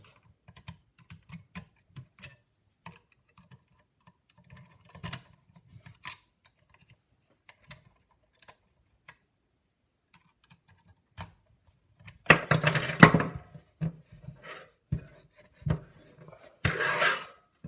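Small metal clicks and scrapes as a lever is worked out of a dismantled five-lever curtain lock, with two louder spells of metallic clattering, one about two-thirds of the way through and one near the end.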